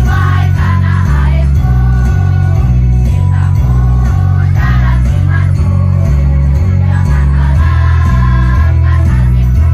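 A school children's choir singing together over loud accompaniment, with a heavy bass line that steps from note to note.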